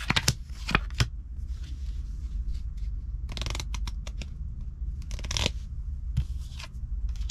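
Playing cards being flipped and laid down in a game of solitaire: a few sharp snaps in the first second, then two longer sliding swishes around three and a half and five and a half seconds in. A steady low hum runs underneath.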